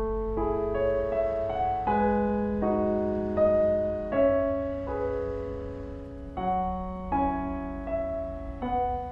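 Background piano music: slow held chords and single notes, changing every second or two.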